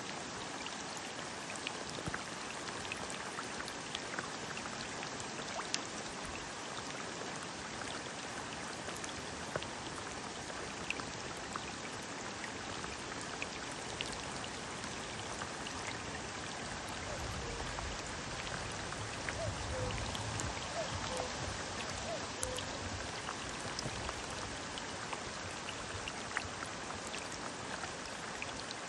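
Water drops falling into water, many sharp drips scattered over a steady hiss of running water. A low rumble rises for a few seconds past the middle.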